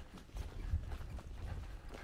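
Footsteps of a hiker walking at a steady pace, heard as dull low thuds.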